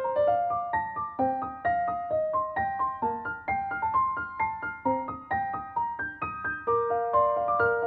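Background music: a gentle piano melody of single notes stepping up and down at an even pace.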